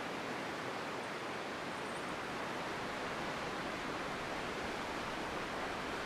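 Steady rush of Fukuroda Falls, a tall four-tiered waterfall partly frozen in winter, with water still falling over the ice.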